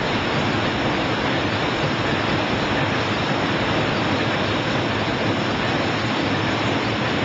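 A steady rushing noise, even and unchanging, with no pitch or rhythm to it.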